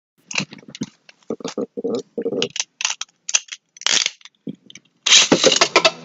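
Beyblade Burst spinning tops: a string of separate short clicks and scrapes, then from about five seconds in a loud, dense clatter and scrape as the tops spin and clash in the stadium.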